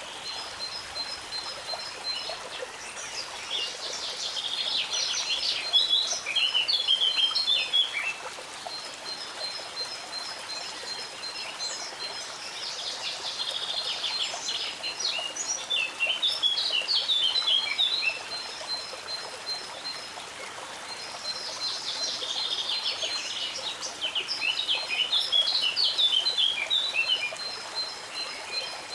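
A songbird sings three long, jumbled song phrases, about nine seconds apart. Each opens with a run of evenly repeated high notes. A stream rushes steadily underneath.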